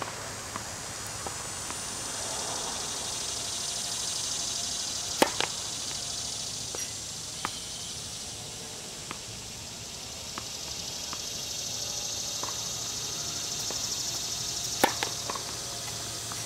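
Tennis serves: two sharp cracks of racket strings hitting the ball, about ten seconds apart, with lighter ticks of the ball bouncing on the hard court in between. A steady, pulsing high drone of insects runs underneath.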